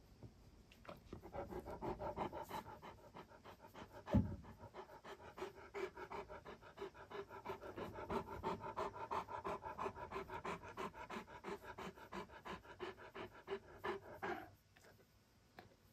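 Great Pyrenees panting close by, a fast, even rhythm of breaths that stops shortly before the end. A brief thump about four seconds in is the loudest sound.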